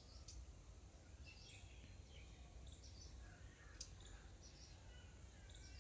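Faint outdoor ambience: scattered short bird chirps and calls in the background over a steady low rumble.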